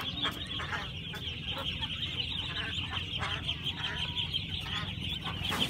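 A large flock of ducklings peeping all together in a continuous high chatter, with scattered calls from adult ducks over it.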